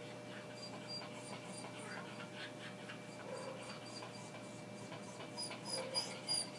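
A small dog whining faintly a couple of times while liquid barium is syringed into her mouth, with quiet handling and mouth noises.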